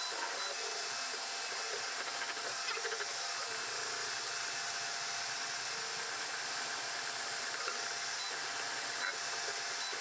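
Elegoo FDM 3D printer running a print: a steady whir from its fans, with short, faint tones that come and go as the stepper motors move the print head.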